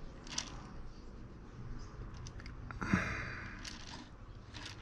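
A man breathing close to the microphone, with a longer, sigh-like exhale about three seconds in and a few short breaths around it.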